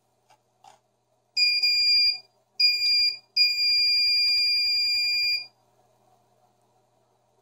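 Gate-opener radio receiver's buzzer beeping at a steady high pitch: two short beeps, then a longer one of about two seconds, signalling that it has learned the new remote's code. Faint clicks of the remote's buttons come just before.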